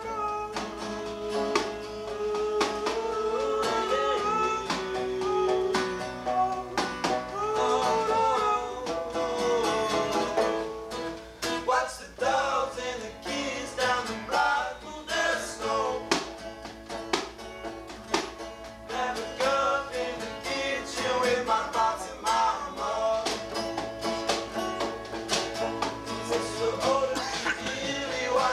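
Acoustic trio playing a song: a banjo and an acoustic guitar picked and strummed over a snare drum played with the bare hands, with frequent short drum strikes.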